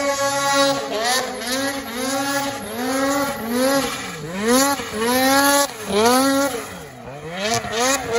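A snowmobile engine revving up and down over and over, about once a second, as the sled climbs a steep snow slope, loses momentum and comes to a stop.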